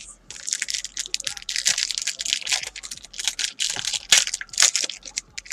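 A 2013 Panini Golden Age trading card pack's wrapper being torn open and crinkled by hand: a dense run of crackling rustles.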